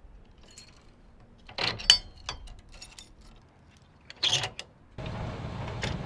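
Metal clinks and rattles of a boat trailer's steel safety chains and coupler as they are hooked to a pickup truck's hitch: a ringing clink about two seconds in, lighter clicks after it, and another cluster about four seconds in. A steady low noise comes in near the end.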